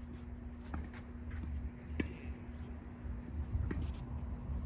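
Tennis ball struck back and forth in a rally: three sharp racket hits and bounces about a second and a half apart, the loudest about two seconds in, over a steady low hum.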